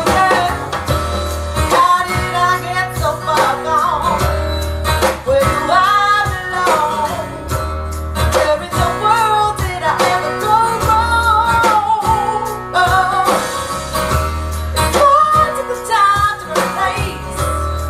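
Recorded song playing on a hi-fi demo system: singing over plucked guitar, with a deep bass note pulsing about every two seconds.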